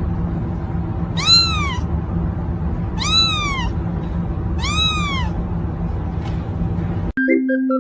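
Cat meowing three times, about two seconds apart, each meow rising then falling in pitch, over a steady background hum. Near the end it cuts abruptly to music.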